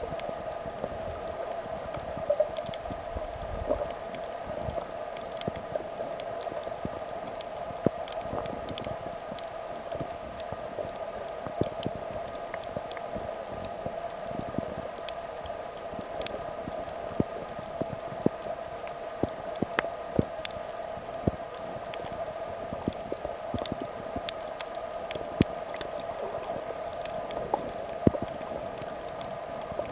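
Underwater ambience on a coral reef: a steady hum with irregular crackling clicks scattered throughout.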